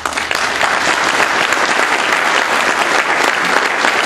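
Audience applauding: many hands clapping, breaking out all at once and keeping up at a steady level.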